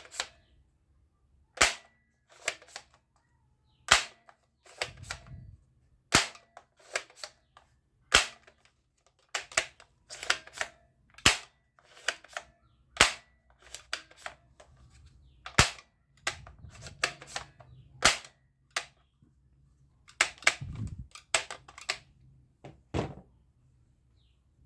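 Toy gun being worked: a long, uneven series of sharp plastic clicks and snaps, some single and some in quick pairs or runs, with duller handling rumbles between them.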